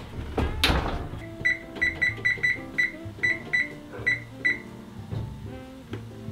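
Oven door shutting with a knock, then a Kenmore range's electronic control panel beeping once for each press of the up-arrow as the time is set: about ten short, same-pitched beeps in quick, uneven succession.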